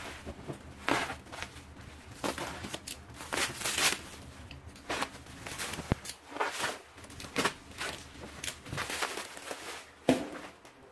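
Black plastic wrapping being cut with a box cutter and pulled off a bubble-wrapped parcel, crinkling and tearing in irregular bursts. A sharp click comes about six seconds in and a louder bump just after ten seconds.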